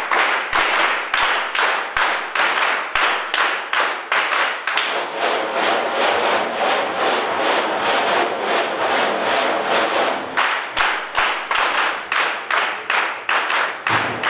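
A group of people clapping hands together in a steady rhythm, about three to four claps a second.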